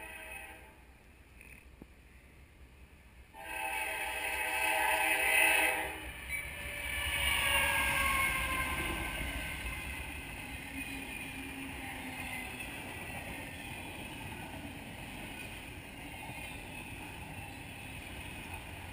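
Freight train diesel locomotive horn sounding for a grade crossing: a short blast at the start, then a long, loud blast about three and a half seconds in. The locomotive then passes close by, its sound falling in pitch, and autorack freight cars roll past with a steady rumble on the rails.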